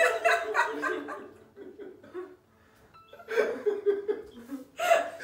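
A young woman laughing hard in bouts: a long burst of laughter at the start, a short lull, then fresh fits of laughter from about three seconds in.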